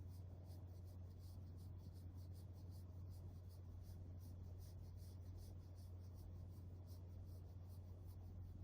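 Faint, quick scratchy strokes, several a second, over a steady low hum.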